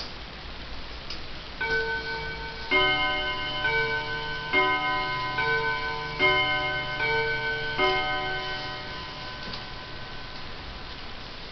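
Heco Art Deco tambour mantel clock striking its bim-bam chime: eight strikes about a second apart, alternating between two notes in four bim-bam pairs. The last note rings out for about two seconds.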